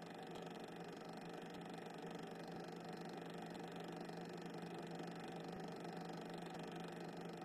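Faint steady electrical hum with a low tone and a hiss, unchanging throughout: the noise floor of a silent 8mm cine film transfer, with no sound from the trains themselves.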